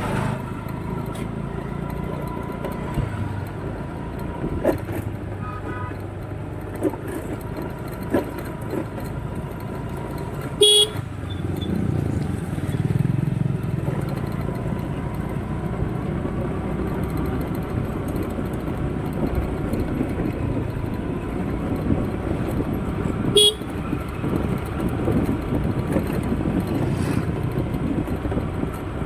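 Steady road traffic rumble with two brief horn toots, one near the middle and one later on.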